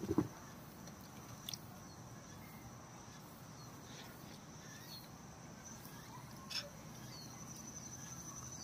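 Quiet outdoor ambience with a steady high-pitched insect trill that pulses near the end. A brief call sounds right at the start, and two faint clicks come later.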